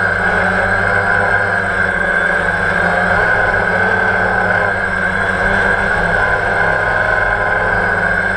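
DJI quadcopter drone's electric motors and propellers whirring in flight, a loud steady whine heard close up through the GoPro mounted on the drone.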